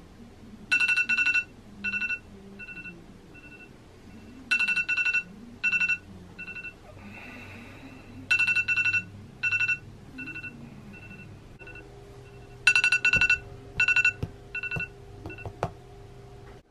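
iPhone alarm going off: bursts of rapid high beeps that trail off, repeating about every four seconds. A few sharp clicks near the end as the phone is handled.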